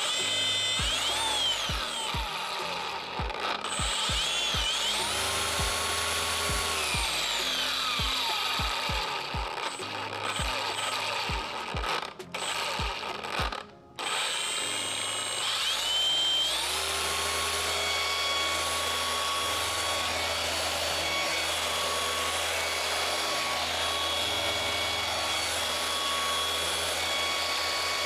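Milwaukee M18 cordless polisher running, its motor and gear head whining with pitch rising and falling as the speed changes, then holding a steady high whine over background music.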